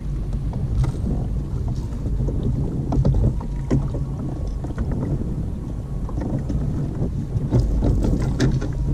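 Wind buffeting the action camera's microphone over choppy sea, a steady low rumble, with water sloshing against the kayaks. Scattered light knocks and clicks from handling on the kayaks, several of them near the end.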